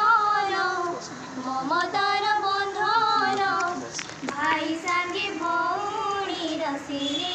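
A high voice singing a slow melody, holding long notes with a light waver and pausing briefly between phrases.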